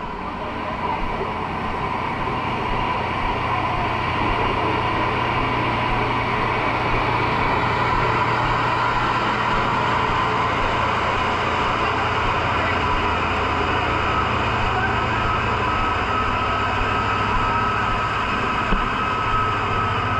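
Vehicle engine running steadily with a constant low hum, under loud, even street noise.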